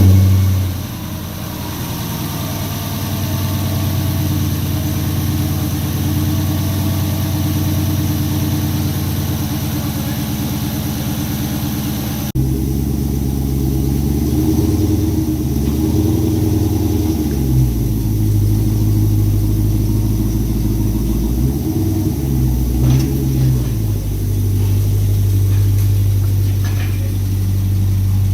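Dodge Demon's supercharged 6.2-litre Hemi V8 just started, settling from its start-up flare into a steady idle, run after an oil change to fill the filter and circulate the fresh oil. The sound changes abruptly about twelve seconds in, and the idle wavers slightly after that.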